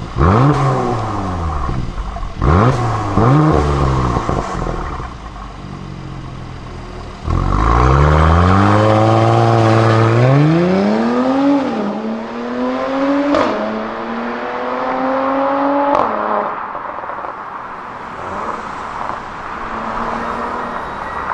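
Mercedes-AMG C43's twin-turbo V6 through an ARMYTRIX valved exhaust: several quick free revs, then a sudden hard launch-control take-off about seven seconds in. It pulls away with the pitch rising through the gears, drops at each upshift with two sharp cracks, and fades as the car drives off.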